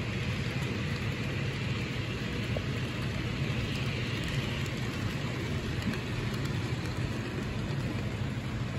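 Model trains running on a layout: a steady low hum with an even hiss over it.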